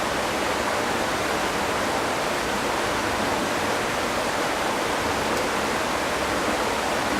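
Mae Kampong waterfall rushing below, a steady, even noise of falling water that comes up loud and echoing.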